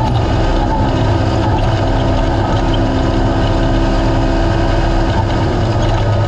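Race UTV's naturally aspirated engine running steadily, a continuous loud drone with rushing noise underneath.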